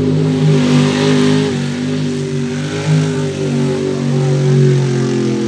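Mud truck's engine revving hard under load as it churns through a deep mud pit, its pitch wavering up and down, with a hissing rush swelling about a second in.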